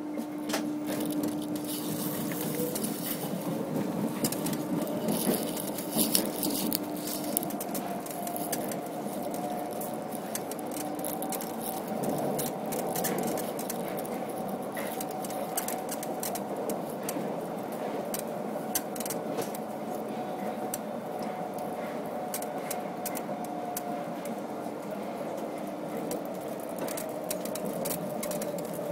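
Paris Métro line 13 train running through a tunnel: a steady rolling rumble with many sharp clicks of the wheels over the rails, and a motor whine that rises slowly, then falls again toward the end as the train slows for the next station.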